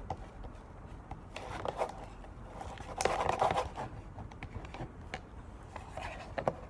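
Glue and food coloring being stirred in a cup with a mixing tool: irregular scraping and clicking, with a louder stretch of scraping about three seconds in.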